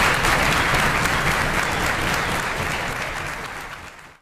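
Theatre audience applauding, a dense even clapping that fades out over the last second.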